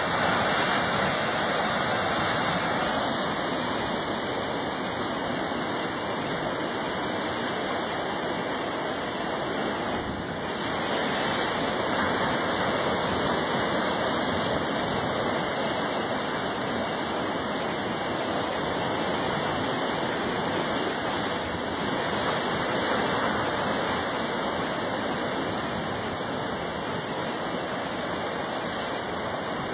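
Ocean surf rushing and churning against a rocky shore, a steady roar of water that swells a little now and then.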